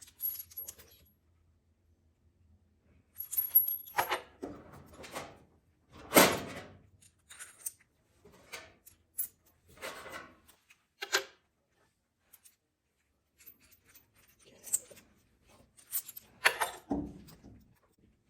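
Irregular clinks, clicks and rustles of hands handling metal parts and tools, with a louder knock about six seconds in and another near the end.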